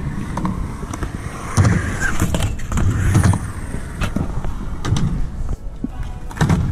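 Skateboard rolling on concrete, its wheels giving a steady low rumble, broken several times by sharp clacks of the board hitting the ground.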